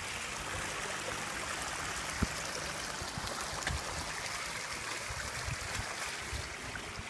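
Steady trickling and splashing of shallow muddy water as a man wades and feels for fish by hand in a drained pond, with a couple of dull low thumps about two seconds in and again a little later.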